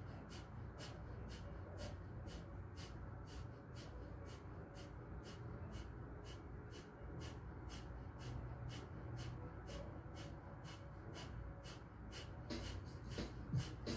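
Kapalbhati (breath of fire) breathing: short, sharp exhales forced out through the nose by pumping the lower abs in, about two a second in an even rhythm.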